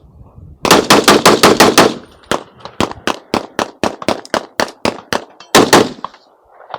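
Rapid gunfire at a shooting range. A fast string of shots, about six or seven a second, starts about half a second in. Steady shots follow at about four a second, then another quick cluster of three near the end.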